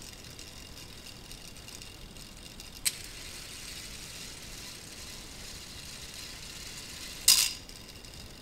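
Small electric motor driving a K'nex two-speed plastic gearbox, running with a steady high whine. Two sharp clacks cut through it, a small one about three seconds in and a louder one about seven seconds in.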